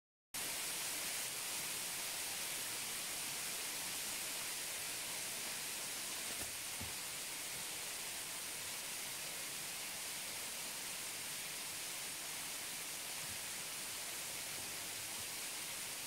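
Waterfall heard close up, its falling water making a steady, even hiss that is strongest at the high end.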